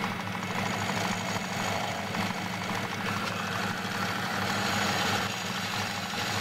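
A small metal lathe runs with a steady hum while a cutter turning in its chuck machines the face of a rough cast aluminium bracket clamped on the carriage. The cut is fed by hand to bring the face level.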